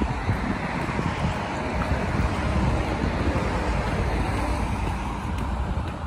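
Steady wash of road traffic from passing cars, with wind rumbling on the microphone.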